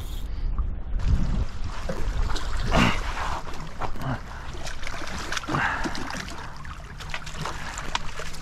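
Water sloshing and splashing below a jetty as a long-handled landing net is dipped in and a fish is scooped up, over a steady low rumble of wind on the microphone, with scattered small knocks.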